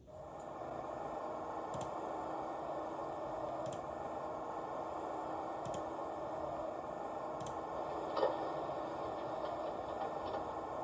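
A model train sound decoder (an ESU LokSound 5 Fx in an Atlas Metra gallery cab car model) comes on and plays a steady ambient hum through its small speaker. A light tick sounds about every two seconds, and there is a brief higher sound about eight seconds in.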